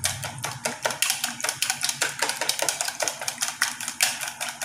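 Wire whisk beating eggs in a plastic bowl, the wires clicking against the bowl in rapid, even strokes, several a second, as the eggs are whipped toward a froth.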